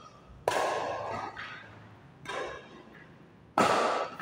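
Badminton racket strings hitting a shuttlecock three times in a rally, sharp cracks that echo in a large hall: one about half a second in, a softer one near the middle, and the loudest near the end.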